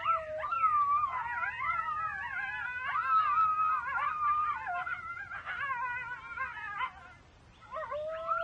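A pack of coyotes howling and yipping together, several voices overlapping in wavering, rising and falling calls. The chorus dies down briefly about seven seconds in, then a long held howl starts up again near the end.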